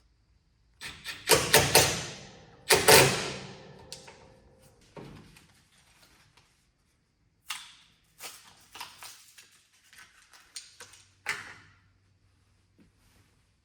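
A few loud knocks with a ringing tail, then a run of lighter clicks and taps.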